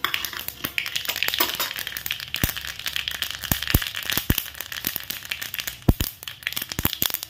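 Fenugreek and mustard seeds frying in hot mustard oil in a kadai, crackling with many sharp pops over a steady sizzle: the seeds spluttering as the tadka tempers.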